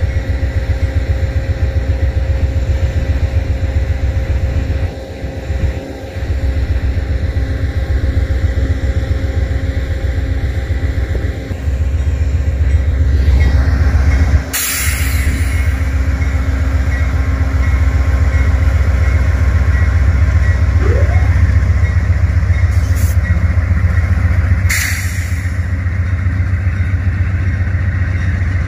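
Amtrak passenger train pulling away behind a GE P42DC diesel locomotive: a loud, steady low rumble of the engine and rolling cars. Two short bursts of hiss come about halfway through and near the end.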